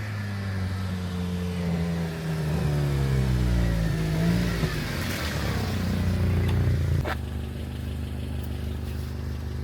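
Car engine running, its pitch sliding down over a few seconds as it changes speed, then shifting again; about seven seconds in there is a sharp click and the engine settles into a steady, even note.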